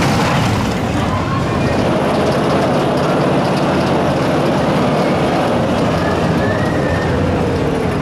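Mack Rides spinning roller coaster cars running along the steel track: a loud, steady rumble of the train's wheels on the rails.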